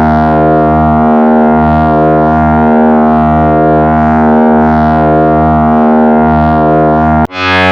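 Korg EX-800 synthesizer playing a sustained bass drone at a steady pitch with many overtones and a slow, regular pulsing swell. About seven seconds in it cuts off abruptly and a new, deeper bass tone starts straight away.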